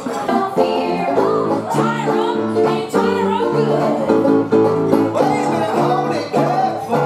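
Stage performers singing a lively country-style song over instrumental accompaniment, held chords changing about every half second.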